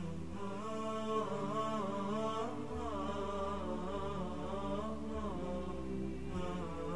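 Quiet background music: a wavering, chant-like sung melody over sustained low notes that shift every two seconds or so.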